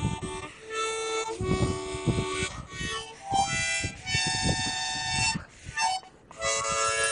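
Harmonica playing long held chords that change every second or so with brief breaks, over low soft knocks.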